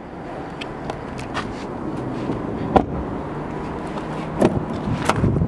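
Steady rumble and hum of outdoor traffic, broken by a few sharp clicks and knocks; the loudest comes about three seconds in.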